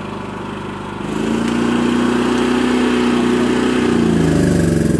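Champion 3400-watt dual-fuel inverter generator engine running. About a second in it speeds up and gets louder, and near the end its note starts to fall.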